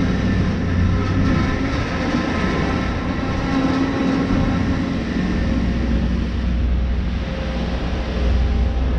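Steady, loud mechanical rumble with a constant hum, the sound of a large engine or machine running close by.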